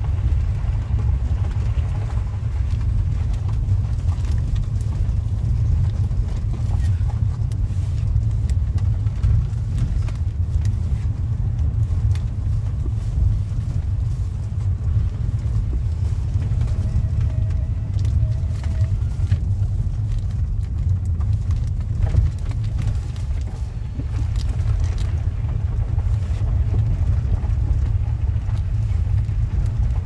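Car cabin noise while driving on a dirt road: a steady low rumble of engine and tyres heard from inside the car.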